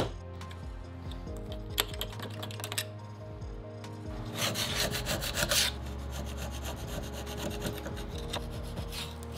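A steel tool scraping against the bare jaw seat of a 1950s Wilton bench vise, with a few light metallic clicks in the first seconds and a louder bout of rasping scraping about halfway through. Background music runs underneath.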